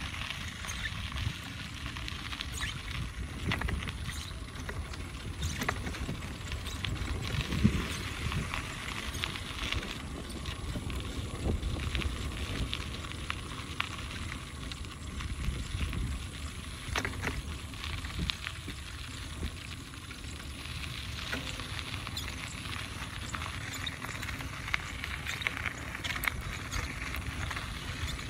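Steady low rumble and hiss with scattered crackles and clicks, picked up while moving along a dirt track through open fields.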